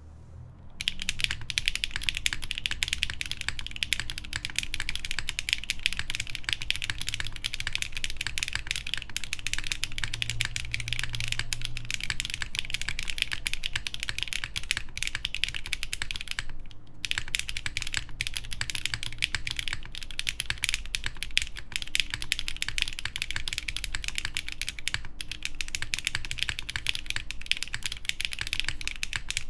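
Continuous typing on an Ikeygai Albatross TKL mechanical keyboard with HMX Sunset Gleam linear switches, a polycarbonate plate and GMK keycaps: a dense stream of key clacks. It starts about a second in and stops briefly a little past halfway.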